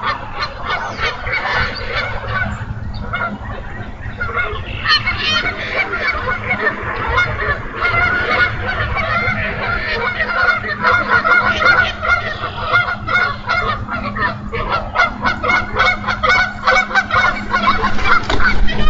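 Birds calling over and over, many short calls overlapping, growing denser and louder toward the end, over a steady low hum.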